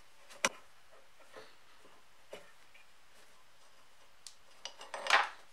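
Metal clicks and a scrape from a screwdriver working a small screw out of an old sharpener's metal frame. There is one sharp click about half a second in and a few faint ticks, then a cluster of clicks and a short, louder scrape near the end.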